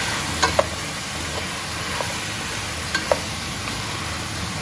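Cut potatoes, carrots, celery and onion sizzling as they sauté in a stainless steel pot, stirred with a wooden spoon. The spoon knocks sharply against the pot twice about half a second in and twice again about three seconds in.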